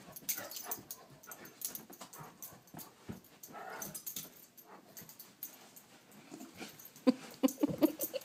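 A dog making breathy sounds in rough play, with scuffles and light thuds of paws on carpet. About seven seconds in comes a louder run of short, low vocal sounds from the dog.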